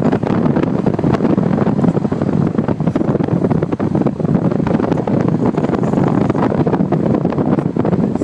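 Wind rushing through the open window of a moving car, buffeting the microphone in a loud, continuous fluttering rush.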